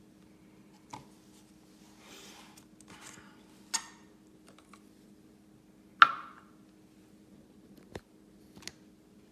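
Handling of small hard objects: five sharp clicks and knocks, the loudest about six seconds in with a short ring after it, and a little rustling between them, over a steady low hum.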